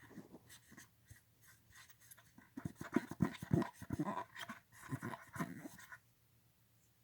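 Scratchy scrubbing and rubbing inside a plastic 8-track tape cartridge as gummy rubber residue from the softening pinch roller is cleaned out of its pathway. It is faint at first, gets louder and busier about two and a half seconds in, and stops about a second before the end.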